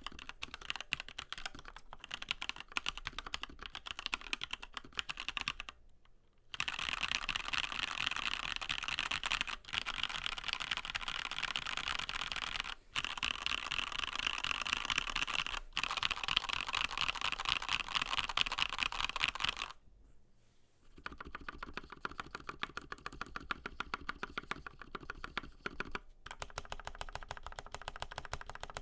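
Typing on a Dark Project One mechanical keyboard with linear Gateron Yellow switches and PBT double-shot keycaps: a rapid, dense clatter of keystrokes. It pauses briefly about six seconds in and again about twenty seconds in, and the stretch between is the densest and loudest.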